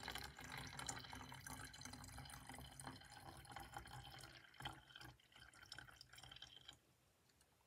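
Water poured from a bottle into a small baby bottle: a faint, thin filling stream that thins out after about four seconds and stops near the end.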